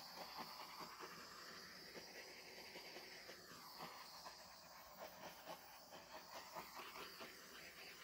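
Small handheld torch flame hissing faintly as it is passed over wet acrylic paint to pop air bubbles in the pour.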